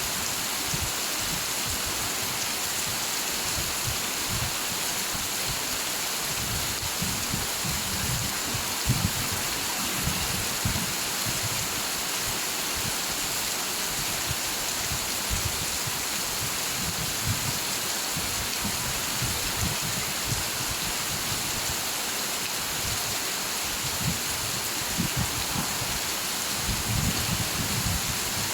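Steady rain, a dense even hiss, with low rumbles coming and going underneath, strongest about a third of the way in and near the end.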